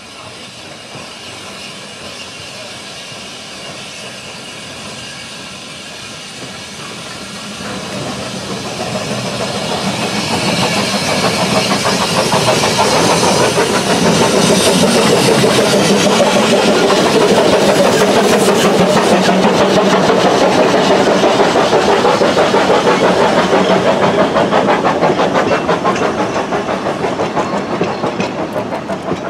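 Narrow-gauge steam train on the Ffestiniog Railway. A steady steam hiss comes first. Then two locomotives working together pass close by, followed by their carriages, which clatter over the rail joints with a rapid rhythmic clicking. The sound swells about a third of the way in and stays loud until it eases near the end.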